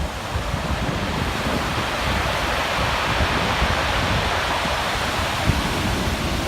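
Ocean surf washing in, a steady hiss of breaking water that swells for a couple of seconds and eases, with wind buffeting the microphone underneath.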